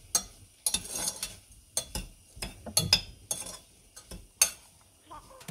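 Spoon stirring raspberries and sugar in a pot, with irregular clinks and knocks of the spoon against the pot.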